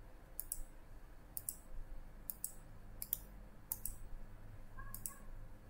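Computer mouse button clicking six times, about once a second, each a sharp press-and-release double tick, faint against a low steady hum.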